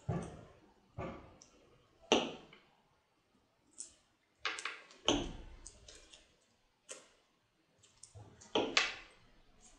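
Glue stick and paper strips being handled on a tabletop during paper crafting: short, irregular clicks, taps and brief paper rustles, about eight or nine of them. The loudest come about two seconds in and near the end.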